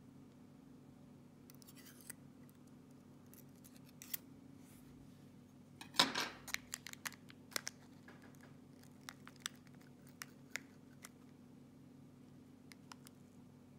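Small, sharp clicks and scrapes of hand-handling a disassembled high-security lock and its tiny metal pins. A louder burst of clicking and rustling comes about six seconds in, followed by a scatter of light ticks over a faint steady hum.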